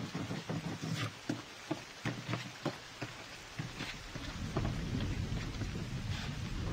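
Rain falling, with scattered small knocks and taps over the first half and a low rumble swelling up about halfway through.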